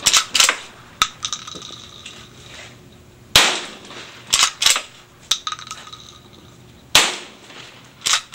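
M26 12-gauge under-barrel shotgun on an M4 carbine fired twice, about three and a half seconds apart, each loud shot followed by a few sharp metallic clacks as the straight-pull bolt is worked by hand to chamber the next shell.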